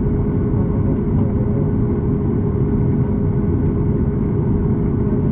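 Jet airliner cabin noise heard from a window seat: the engines' steady low rumble with a constant hum over it, neither rising nor falling.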